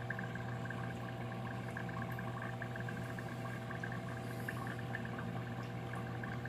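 Aquarium air line bubbling and fizzing in a small dip container over a steady low hum of aquarium equipment.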